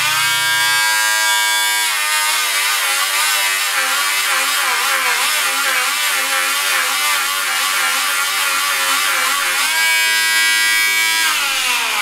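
Slot car's small electric motor running at high revs while its spinning rear tyres are ground true on abrasive grip paper: a high whine over a steady hiss, noisy. The pitch wavers up and down as the tyres are worked against the paper, then starts to fall near the end.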